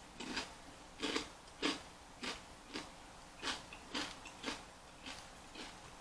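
Crunchy chewing of a fresh jalapeño stuffed with cream cheese and Takis rolled tortilla chips, a sharp crunch about every half second, loudest in the first couple of seconds and getting softer.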